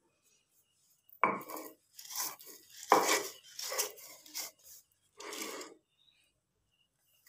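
Dark stone grinder (nora) crushing and rubbing dry-roasted cumin, coriander and dried red chillies on a scored grinding slab (sil), in about five uneven scraping crunches from about a second in, as the spices are ground to a powder.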